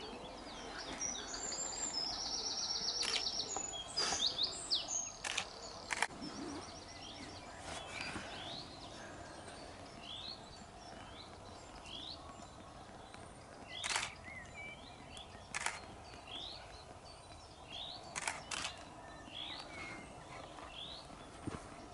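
Camera shutter clicking in sharp single clicks and quick pairs, scattered through, over small birds chirping and singing.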